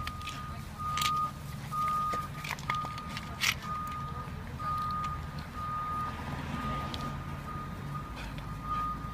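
A vehicle's reversing alarm beeping, one steady high tone about once a second, over a low engine rumble, with a few sharp clicks.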